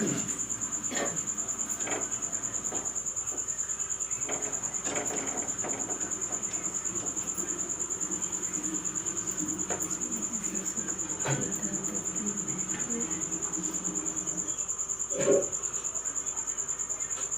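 A cricket chirping in a steady, fast, high-pitched trill. Faint knocks and clicks of kitchen handling sound over it, with a louder thump about 15 seconds in.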